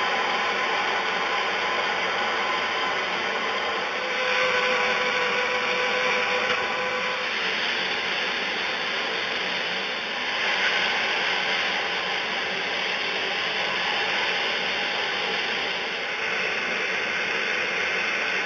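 Multiplaz 3500 water-plasma torch running continuously with a steady hiss while cutting or welding, growing a little stronger about four seconds in and again around ten seconds in.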